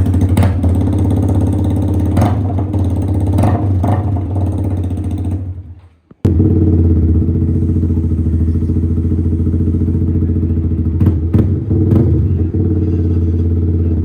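Yamaha MT-15's single-cylinder engine idling steadily through an aftermarket Akrapovic exhaust, with a deep, even exhaust note. The sound fades out a little before halfway and comes back abruptly.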